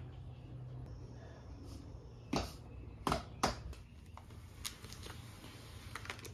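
A few short, sharp clicks and knocks from hands handling a plastic-wrapped brake part, over a steady low hum.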